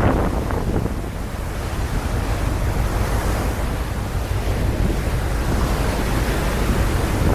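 Wind buffeting the microphone on a car ferry under way at sea: a steady rush with a low rumble underneath, and no break.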